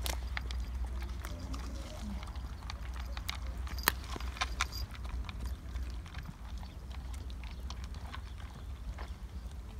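Dog eating a mix of canned wet food and dry kibble from a plastic bowl: irregular crunching and clicking of chewing, with one louder click about four seconds in, over a steady low rumble.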